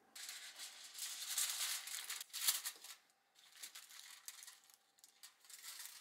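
Irregular rustling and crinkling handling noise that starts abruptly, with short breaks about three and five seconds in.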